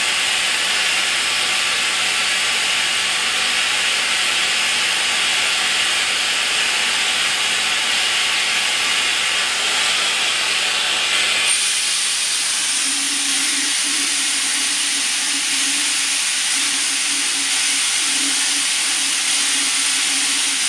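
Small electric fluid-extraction pump sucking power-steering fluid out of the reservoir through a thin tube: a steady hiss of suction. About halfway through, the hiss changes and a low wavering hum joins it.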